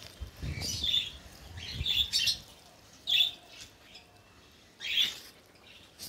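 Chirps and short calls from a room of caged small parrots (sun conures, cockatiels, budgies and lovebirds), coming in about five separate high bursts.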